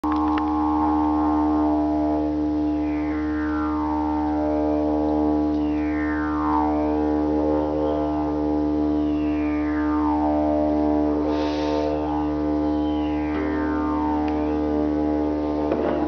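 Didgeridoo playing one unbroken drone with a steady low base note. A bright overtone sweeps down in pitch about every three seconds, four times in all, and there is one short hiss partway through.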